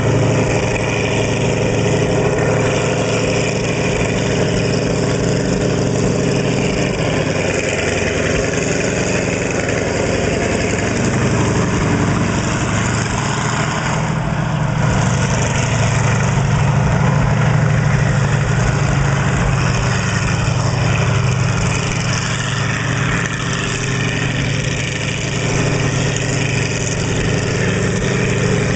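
Engine of a Sexton tracked self-propelled gun running steadily as the vehicle drives along a dirt track, swelling a little about halfway through.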